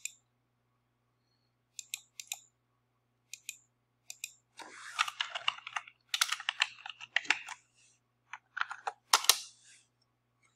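Computer keyboard typing in several quick bursts, after a few separate clicks.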